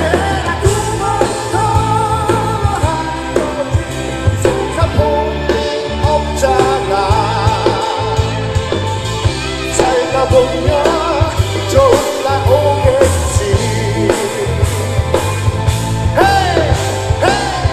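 Live rock band: a man sings lead into a microphone over electric guitar, bass guitar and a drum kit, all amplified through the stage sound system.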